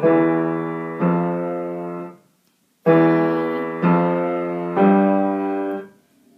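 Piano playing a slow figure in its low-middle register, one note about every second, each left to ring and fade: two notes, a short pause, then three more.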